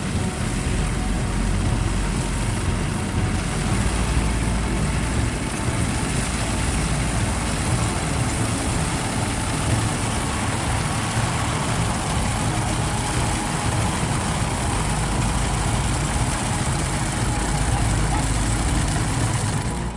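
Engine of a combine harvester running steadily at idle, a constant low rumble with a wide mechanical noise above it.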